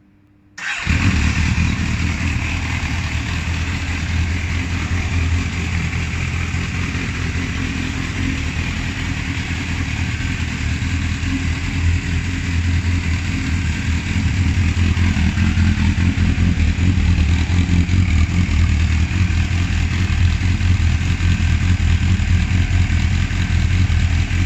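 MV Agusta Brutale 750's inline-four engine, on its stock exhaust, coming in suddenly about half a second in and then running steadily at idle, a little louder in the second half.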